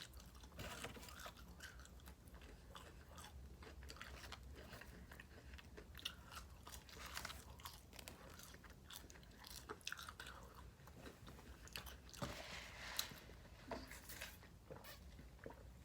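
A person chewing fast food close to the microphone: quiet mouth sounds made of many small, sharp clicks, with a louder, noisier stretch about twelve seconds in.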